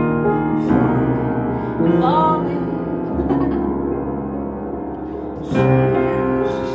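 Upright piano playing slow, sustained chords that change every second or two.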